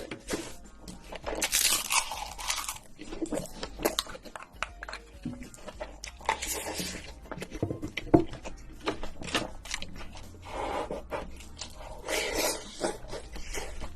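Close-miked eating: chewing and crunching, with many sharp clicks and scrapes of a utensil and a few louder noisy stretches.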